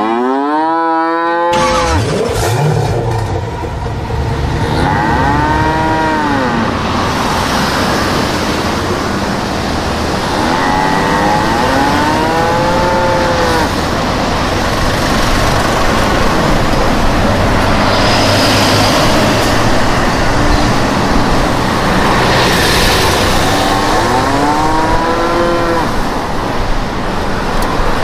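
A cow mooing about five times, each a long call that rises and then falls, over a steady rumble and hiss like a vehicle engine with road noise that starts about a second and a half in.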